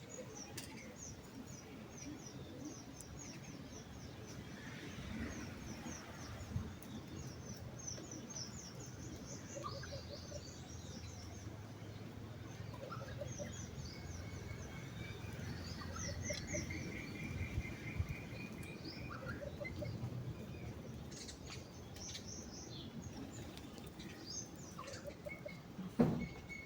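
Birds chirping, many quick high chirps in rapid runs, with a repeated trill partway through and a single knock near the end.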